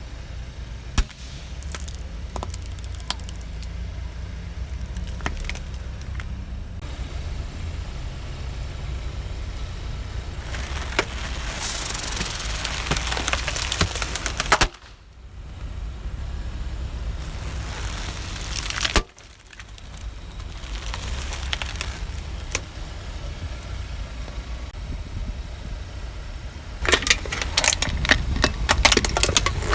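Car's engine running low and steady while its tyres roll over and crush crunchy objects: scattered cracks and snaps, with bursts of dense crackling, the loudest near the end.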